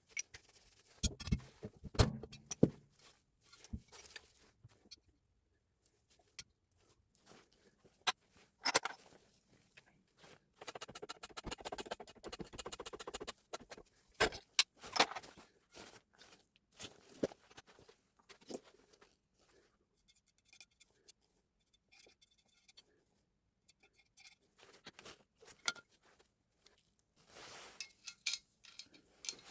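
Hand tools and metal parts knocking and clinking on a workbench during repair of a Hilti TE 905 demolition breaker: scattered sharp clicks and knocks, with a few seconds of rapid, even clicking about a third of the way in.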